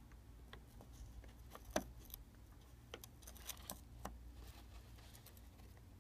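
Faint, scattered metallic clicks and taps as the steel jaws of a corner repair plier are set against an iPhone 6's aluminium frame: one sharper click about two seconds in, and a small cluster a second or so later, over a low steady hum.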